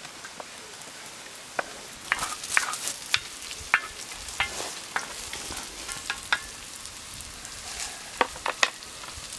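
Sliced peppers and red onion sizzling in a hot iron saj pan over a wood fire, with a wooden spoon scraping and knocking against the pan as they are stirred. The sizzle grows louder about two seconds in, and the sharp scrapes and knocks come thickly for a few seconds and again near the end.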